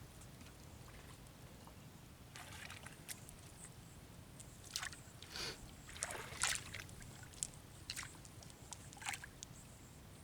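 Quiet water sloshing and splashing in a few short, scattered bursts.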